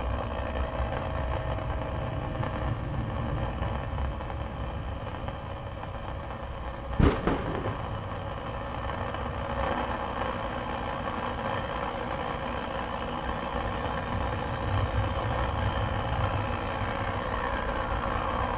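Steady low rumble with hiss, and one sharp click about seven seconds in.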